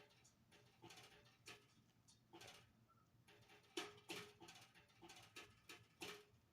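Fingers tapping the rubber pads of a Donner Starrypad MIDI pad controller: faint, irregular soft taps, several a second, with the firmest hit about four seconds in.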